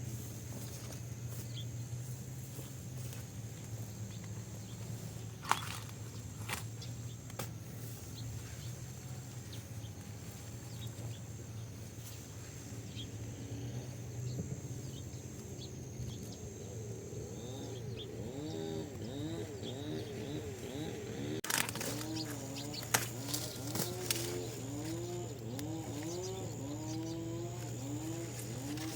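A farm animal calling over and over in short calls that rise and fall in pitch, starting about halfway through, over a steady low hum and a steady high whine, with scattered clicks.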